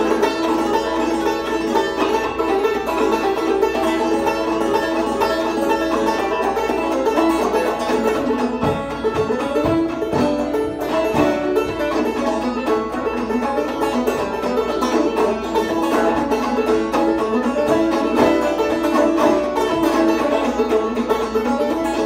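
Two banjos played clawhammer style, picking an old-time tune together at a steady driving pace, without singing.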